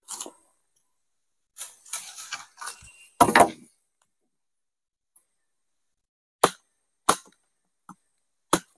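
Sticks and branches being handled on the forest floor: rustling and crackling from about a second and a half in, with a heavier knock just after three seconds, then four separate sharp cracks or knocks in the second half.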